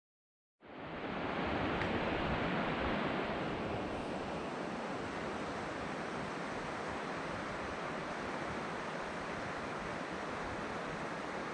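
Steady, even rushing noise of outdoor ambience, fading in just under a second in after a brief silence.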